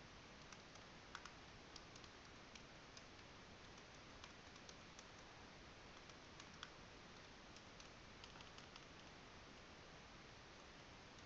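Faint typing on a computer keyboard: scattered light key clicks at an irregular pace over a low steady hiss.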